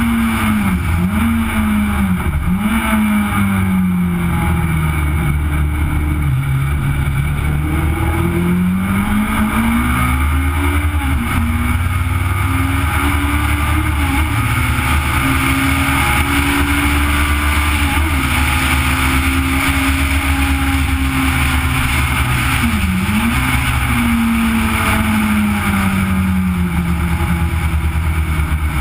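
Legend race car engine heard onboard at racing speed, revs rising and falling with gear changes and lifts. There are several quick dips near the start, a long climb, then a steady high run broken by one brief dip, and the revs fall off near the end. Constant wind and road noise lies underneath.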